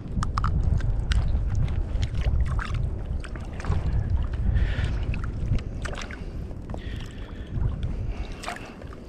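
Steady low wind rumble on the microphone with water lapping, and scattered light clicks and small splashes as a caught speckled trout and its line are handled at the water's surface.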